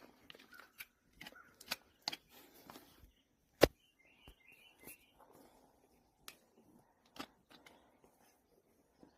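Hoof nippers snipping off the horse's hoof wall during a trim: a series of sharp clicks and snaps, with one much louder crack about three and a half seconds in.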